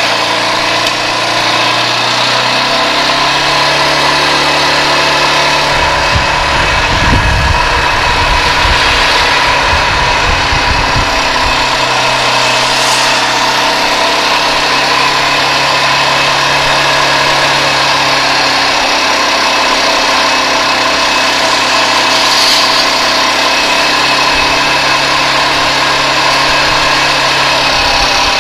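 K-Lion Santa 200 quad bike engine running under way, its note holding steady and then stepping up or down several times as the throttle changes. A stretch of low rumble rides under it about six to eleven seconds in.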